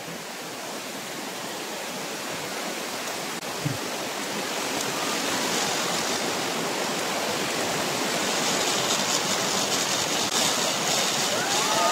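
Steady rush of flowing water, growing gradually louder.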